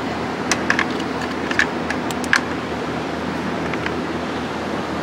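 Steady mechanical drone of a running machine in a shop, with a quick series of light clicks and taps during the first two and a half seconds and one more near four seconds.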